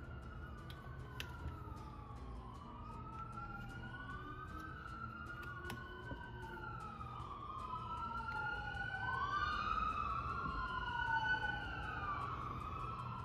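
Emergency vehicle sirens wailing, at least two at once, each sweeping up and down in pitch. They grow louder past the middle and ease off near the end.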